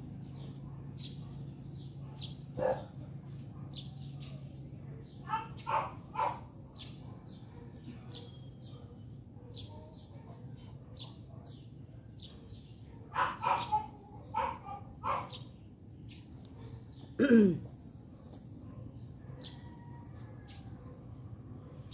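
A small bird chirping over and over, about two chirps a second, while a dog barks in short runs of two or three. The loudest bark, falling in pitch, comes about 17 seconds in.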